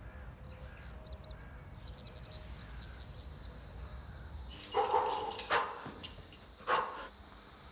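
Birds chirping, then a thin, steady high-pitched whistling tone sets in about two seconds in and holds: a sound-design imitation of tinnitus ringing in the ears. In the second half a few short, sharp noises cut in over the tone.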